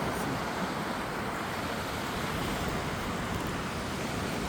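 Sea surf washing steadily onto a beach, with wind rumbling on the microphone.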